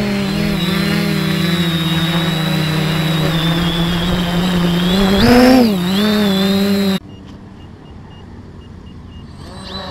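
Quadcopter's four brushless motors (2812 980KV) and 10-inch propellers hovering, heard through the onboard camera as a loud, steady hum. The pitch rises and falls back about five seconds in as the motors correct. About seven seconds in the sound cuts abruptly to a much quieter, fainter hum.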